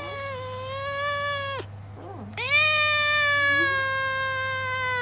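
A tabby-and-white cat giving two long, drawn-out meows, the second louder and longer than the first, each held at a steady pitch and cut off sharply.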